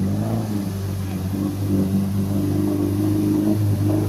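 Off-road 4x4's engine running at steady revs.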